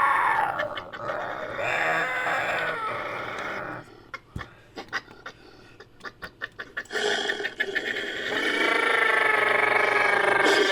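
Made-up creature calls for a fictional humanoid badger, mixed from a human voice and recorded wolf and badger sounds. A few short harsh calls give way to a quieter run of quick clicks, then one long held howl-like call that bends down in pitch at the end.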